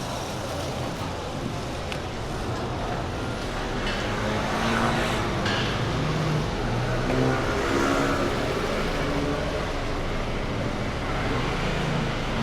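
City street ambience with road traffic: a motor vehicle passes, growing louder through the middle and fading toward the end.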